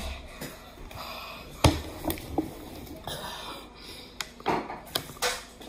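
Handling of and drinking from a plastic water bottle, with irregular knocks and taps. The loudest knock comes a little under two seconds in.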